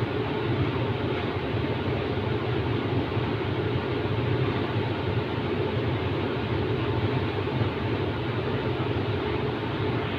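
Steady running noise of machinery: a constant low hum and rumble with a hiss above it.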